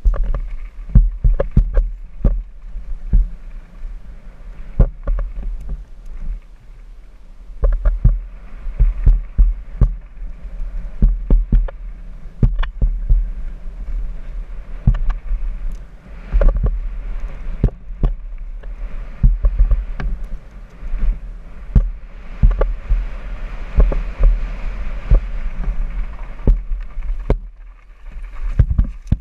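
Downhill mountain bike running fast over a rough dirt and gravel track, heard from a rider-mounted camera: wind rumbles on the microphone, with frequent sharp knocks and rattles as the bike hits bumps and stones. It grows quieter near the end.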